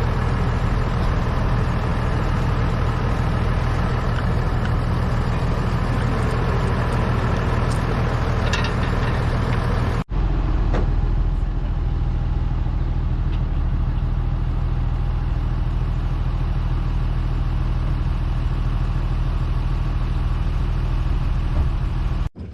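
A motor vehicle's engine running steadily, with a brief break about ten seconds in.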